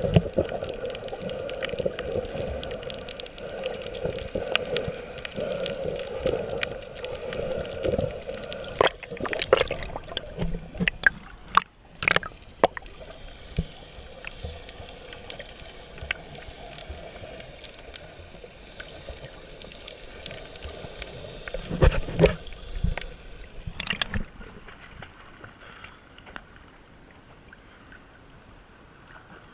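Muffled underwater water noise heard through a waterproof action-camera housing held below the surface, with gurgling and several sharp knocks and splashes in two clusters partway through. It turns quieter near the end.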